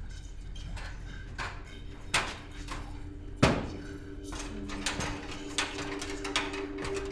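Scattered knocks and clanks of an aluminium ladder being handled and climbed against a corrugated-iron wall, the loudest a sharp knock about three and a half seconds in. A low, steady two-note drone comes in with that knock and holds.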